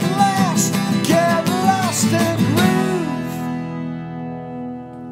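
Two acoustic guitars strummed, with a voice singing short wordless phrases over them. About three seconds in they land on a final chord that is left to ring and fade: the close of the song.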